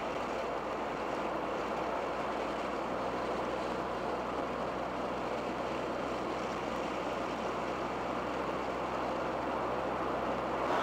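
Steady cruising sound of a 1987 Dodge Daytona Shelby Z at light throttle: the turbocharged 2.2-litre engine's low hum under an even wash of road and wind noise.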